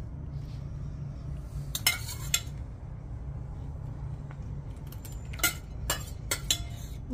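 Light clicks and clinks as pieces of fish and dry cat food are set down by hand on a banana leaf on a tiled floor: a short cluster about two seconds in, then a few single clicks near the end, over a steady low hum.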